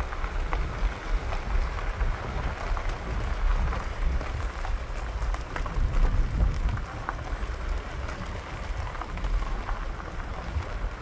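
Wind buffeting the microphone with an uneven low rumble, over footsteps crunching on gravel ballast as someone walks along.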